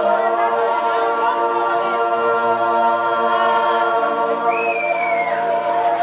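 A group of voices singing long held notes together without instruments, the chord changing about four seconds in, with a high note sliding down near the end.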